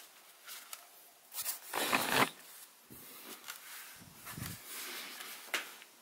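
Handling noise of a plastic Wi-Fi router being turned over in the hands and its hinged antennas moved: irregular rubbing and knocking sounds, loudest about two seconds in.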